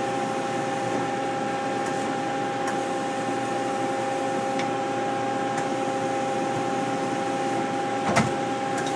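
1997 Mazak QT-20 CNC lathe running with a steady two-tone hum while its programmable tailstock is moved along the bed, with a few faint ticks and a sharp clack about eight seconds in.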